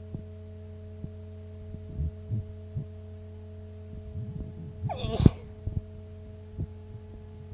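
A person's wet sneeze about five seconds in: one sharp, loud burst after a few short breathy build-up sounds. A steady low hum runs underneath.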